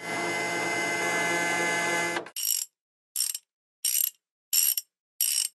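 Mechanical assembly sound effects: a steady whirring machine noise for about two seconds that cuts off abruptly, then five short high-pitched bursts, evenly spaced about two-thirds of a second apart.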